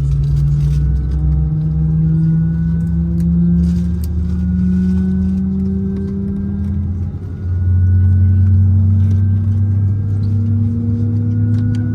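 Airbus A319-111's CFM56 jet engine spooling up, heard from inside the cabin: a steady rumble with several tones rising slowly in pitch. The low rumble steps up about seven and a half seconds in.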